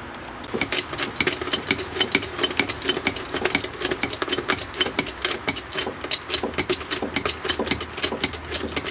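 Rapid metallic clicking, about five clicks a second, as a threaded press tool is wound in by hand, pulling a Daewoo Lanos front hub into its new wheel bearing.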